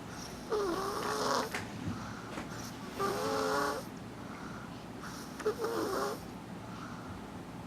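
Loud snoring: three snores about two and a half seconds apart, each about a second long, with a wavering pitch.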